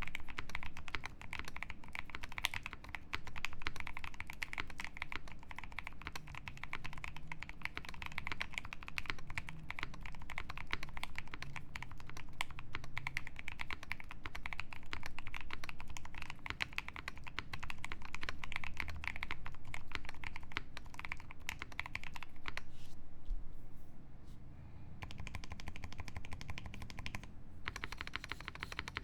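Fast, continuous typing on a custom mechanical keyboard with lubed Ajazz Giwi switches on a POM plate and PBT keycaps, a dense run of keystrokes. The typing thins out for a couple of seconds near the end, then picks up again.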